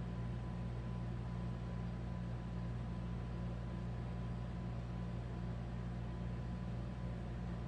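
Steady low electrical or fan-like hum with an even hiss and a faint steady high tone, unchanging throughout, with no distinct events.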